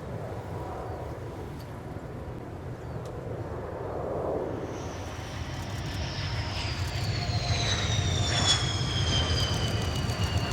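F-15DJ Eagle's twin jet engines growing louder as the jet approaches, with a high whine that appears about halfway through and glides steadily down in pitch over a low rumble.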